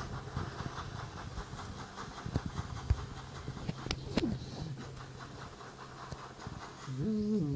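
A person panting in quick, even breaths, about four a second, then a held, slightly wavering vocal note begins near the end and is louder than the breathing.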